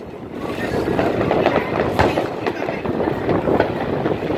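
Aerial fireworks going off: dense rapid crackling and popping from the shells, with a sharper bang about two seconds in and another near the end.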